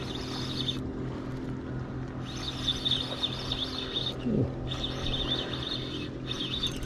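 A spinning reel is cranked in short spells while a hooked fish is played. Birds chirp over a steady low hum.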